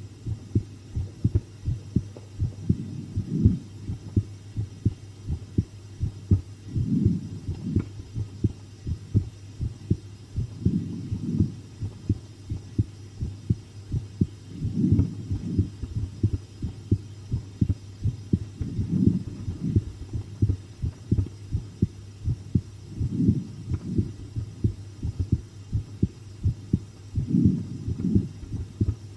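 A human heartbeat picked up close to the chest, a steady run of low thuds over a faint steady hum, with a slow swell about every four seconds. The recordist thinks her heart is beating faster than usual from the fright of the scary video.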